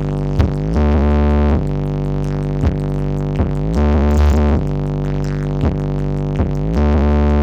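Electronic music from a large outdoor sound system with stacked subwoofers, played loud. A deep synthesizer bass and sustained chords change note about once a second, with short rising sweeps between them.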